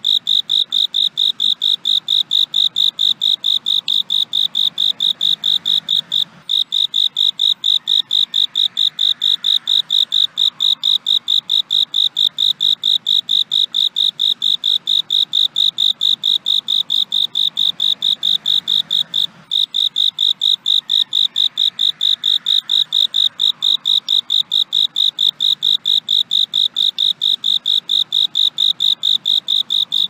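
Cricket chirping: a high-pitched, regular chirp repeated a few times a second without letting up, breaking off for a moment twice.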